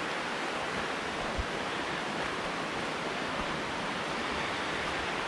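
Steady, even rushing of a small woodland stream, with one soft low thud about a second and a half in.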